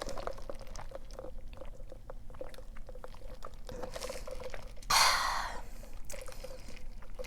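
Close-up wet chewing of a mouthful of burrito, with many small mouth clicks. About five seconds in there is a brief, louder breathy hiss.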